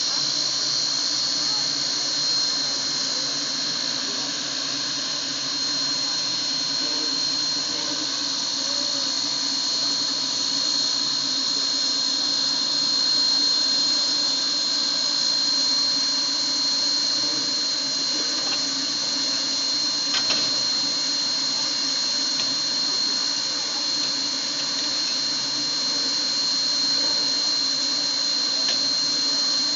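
Sierra Railway No. 3, a 4-6-0 steam locomotive under steam, giving off a steady hiss of escaping steam with a high whine held on one pitch. The sound does not let up, and there is a faint click about twenty seconds in.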